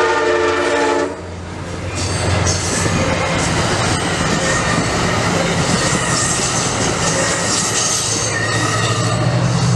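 MARC commuter train's horn sounding a chord that cuts off about a second in, then the train rushing past on the rails, with high wheel noise and a steady low engine hum.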